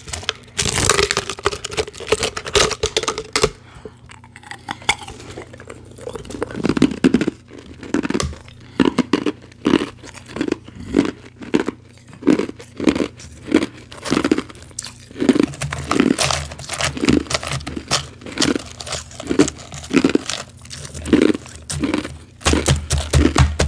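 Water poured from a plastic bottle onto powdery ice in a plastic tub for about three seconds. After a pause, close-up crunchy chewing of the wet powdery ice follows, with about two crunches a second.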